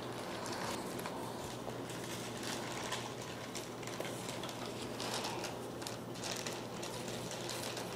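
Pen scratching on paper in many short, quick strokes, over a steady low hum.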